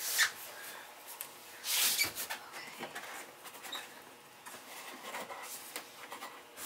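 Tarkett Vericore floating vinyl plank scraping and rubbing against the floor and wall edge as it is worked into place by hand. There is a short scrape at the start and a louder one about two seconds in, then faint light knocks and rustles.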